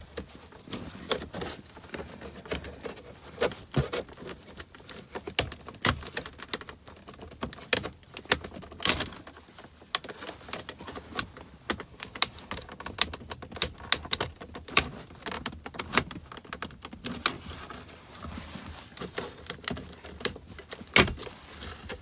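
Plastic trim clips and panel edges clicking and snapping as the rear console centre vent panel of an Audi Q5 is pried loose with a plastic trim removal tool. Irregular sharp clicks, with louder snaps about midway and near the end.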